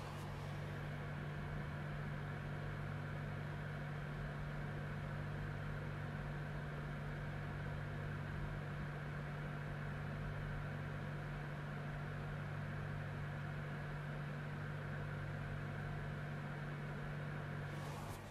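Desktop PC cooled by a Corsair H55 all-in-one liquid CPU cooler, running under a CPU stress test and heard through the closed case. Its fans and pump make a steady whirring hum with a low buzz. The CPU fan is spun up to about 1580 RPM under the load.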